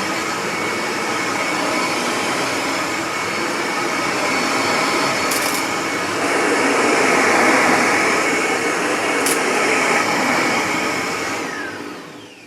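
Upright vacuum cleaner running with a steady motor whine and two short clicks, then switched off near the end, its motor winding down in pitch.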